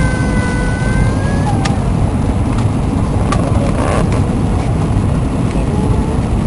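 Steady, loud rumble of engine and airflow noise heard inside a jet airliner's cabin as it lands. A faint pitched tone with several overtones sounds over it and stops about a second and a half in.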